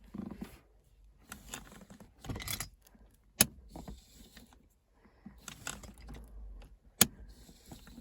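Ford S-Max handbrake lever being operated with its newly fitted release cable: rattling handling noises and two sharp clicks, about three and a half seconds apart.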